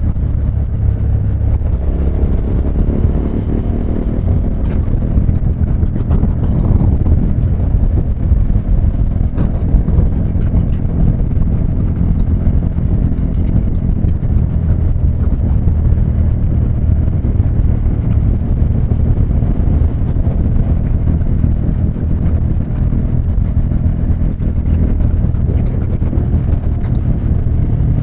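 KTM 1290 Super Adventure S's V-twin engine running steadily at cruising speed of about 90–100 km/h, mixed with wind rush on the microphone.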